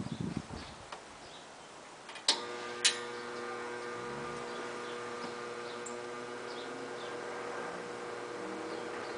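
A few low knocks, then two sharp clicks of the switch a little over two seconds in, after which a 1960s Vornado PV12 12-inch box fan starts up and runs with a steady motor hum.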